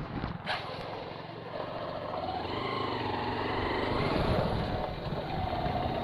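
Honda Hornet motorcycle's single-cylinder engine running, growing louder toward the middle.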